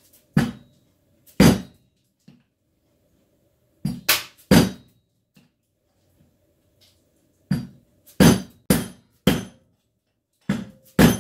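Mallet blows on a large socket used as a drift, driving a new bearing onto a shaft by its metal race. About eleven sharp knocks come in short bursts: two, then three, then four, then two more near the end.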